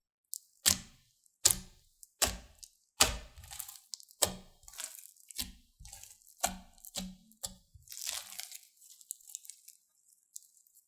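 Slime being squeezed and pressed by hand, giving a run of sharp cracking pops about once a second, then a softer crackle that fades out near the end.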